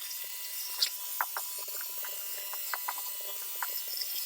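Light clicks and taps of small parts and hand tools being handled, scattered irregularly, over a faint steady hum.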